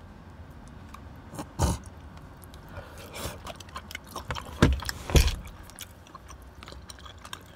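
Eating sounds from spicy rice cakes (tteokbokki) eaten with wooden chopsticks from a plastic takeout tray: chewing, with chopsticks scraping and knocking on the tray. A few sharp knocks stand out, one under two seconds in and two louder ones around five seconds in.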